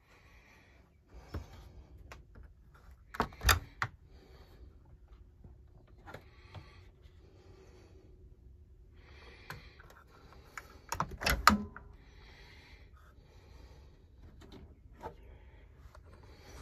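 Clicks and knocks of an RV refrigerator's door and latch being handled and the door swung open. There are two louder clusters of knocks, about three seconds in and again about eleven seconds in.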